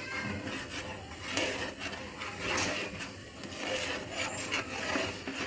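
A long metal spoon stirring thick haleem in a large metal pot, scraping through the paste and against the pot in repeated strokes about once a second.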